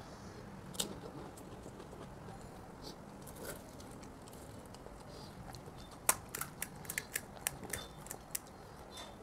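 Crisp pani puri shells cracking: a single sharp crack about a second in, then a quick run of about a dozen crisp cracks and crunches in the second half.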